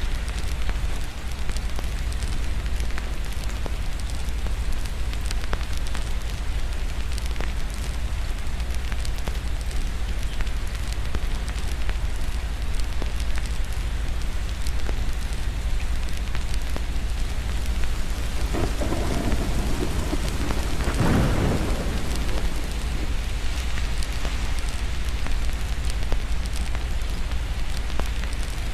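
Steady rain with scattered small crackles and pops over a constant low rumble. About two-thirds of the way through, a roll of thunder swells and fades over a few seconds.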